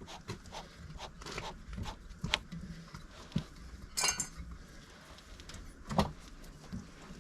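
Scattered clicks and clinks of small hardware being handled, with a sharp rattle about four seconds in and a louder knock about six seconds in.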